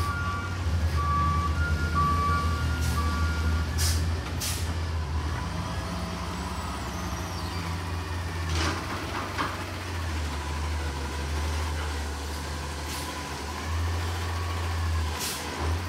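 Peterbilt 320 front-loader garbage truck's natural-gas engine running low and steady. Its reversing alarm beeps for the first few seconds. Several short air-brake hisses follow as it pulls up to the dumpster.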